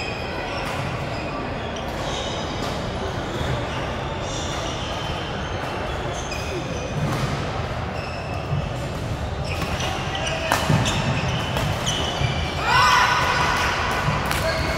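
Badminton play in a sports hall: sharp racket strikes on the shuttlecock and shoes squeaking on the court floor, with voices murmuring in the hall. The squeaks cluster loudest about two seconds before the end.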